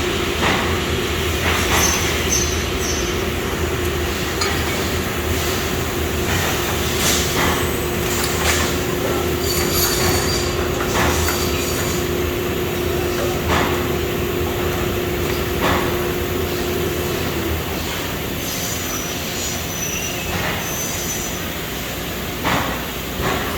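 Sturtz vertical welder running in a workshop: a steady low hum with a constant mid-pitched drone that cuts off about 17 seconds in, and scattered clanks and clicks throughout.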